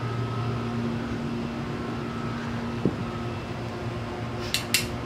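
Steady low hum under a faint hiss. The hum's higher line stops about three seconds in, with a single click near the middle and two short sharp noises near the end.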